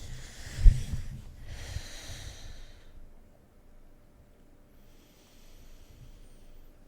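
Slow, close breaths into the microphone, three drawn-out breaths in all, like someone asleep. A low, loud thump comes about a second in, with low rumbling over the first two seconds.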